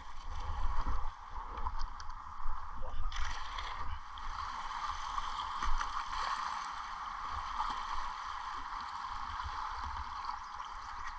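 Rushing river water around a whitewater kayak running a small rapid, with sharp paddle-stroke splashes in the first few seconds, then a steady rush of moving water.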